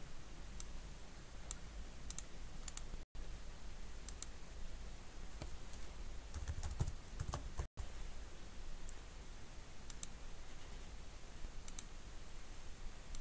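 Keystrokes on a computer keyboard, a few at a time with pauses between, over a faint low hum. The sound cuts out for an instant twice.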